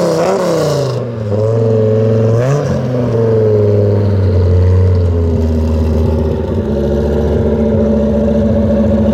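Muscle car V8 engine revving: the pitch wavers up and down at first, drops about a second in, blips up once about two and a half seconds in, then holds a steady low idle.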